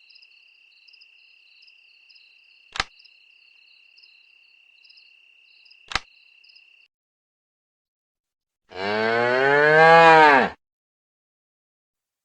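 Crickets chirping steadily and softly, with two sharp clicks, stopping about seven seconds in. Then a cow moos once, loudly, for about two seconds, its pitch rising and then falling.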